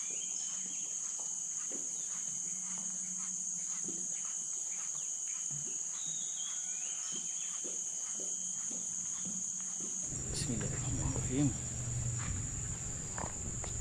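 A steady, high-pitched drone of insects calling, as in a tropical riverside chorus. About ten seconds in, a low rumble joins it.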